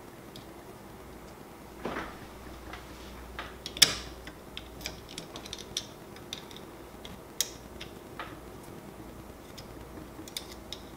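Scattered small clicks and ticks of hands handling the printer's metal hotend parts while its screws are being turned back in, with a sharper click about four seconds in.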